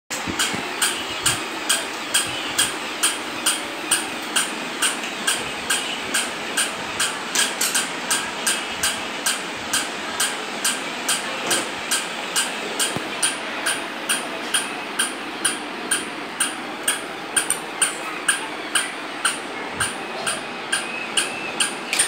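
Remote-control plush toy dog's small electric motor and gearbox whirring as it moves, with a sharp mechanical click about twice a second.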